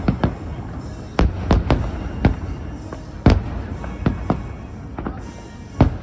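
Aerial fireworks bursting: about ten sharp booms at irregular intervals, each trailing a short low rumble, with the loudest about three seconds in.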